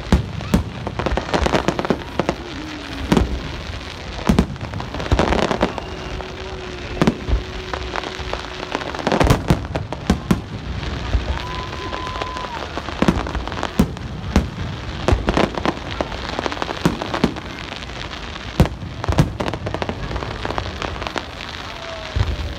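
Aerial fireworks display: a rapid, irregular string of sharp bangs from bursting shells, with steady crackling between them.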